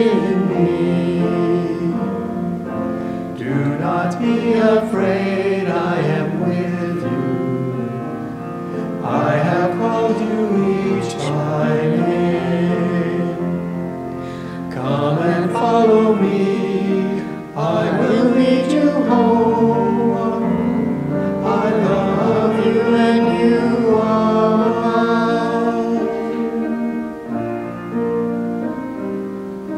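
A small group of voices singing a hymn together, with instrumental accompaniment.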